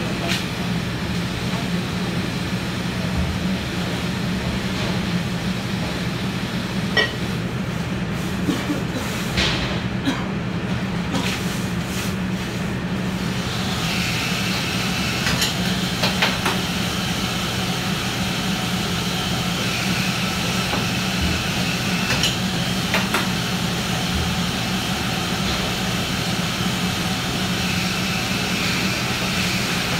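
Commercial kitchen exhaust hood fan running with a steady hum, over water hissing on a hot flat-top griddle as it is scrubbed, with scattered knocks and scrapes of the cleaning tools. The hiss grows stronger about halfway through.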